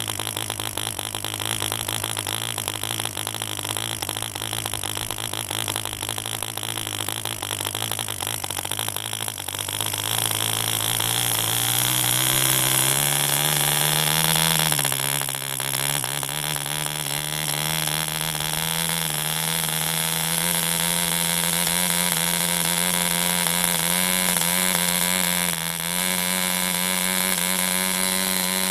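1945 French Stab 1.25 cc model diesel engine, a single-cylinder two-stroke, running at a slow idle. About ten seconds in, its throttle is opened and it speeds up over a few seconds, sags briefly, then runs steadily at the higher speed, with no change to the compression setting.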